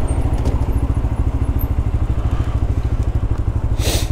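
Lexmoto LXR 125's single-cylinder four-stroke engine running steadily while the bike is ridden, with a brief rush of noise just before the end.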